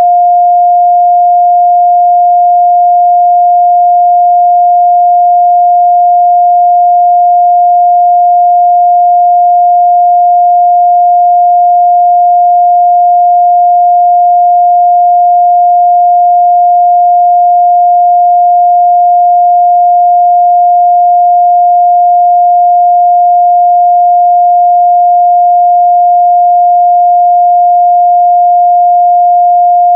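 A steady, loud 706 Hz sine-wave test tone, one pure unchanging pitch in the midrange.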